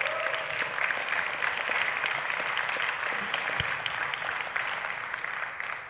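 Audience applauding, a dense patter of many hands that thins out near the end.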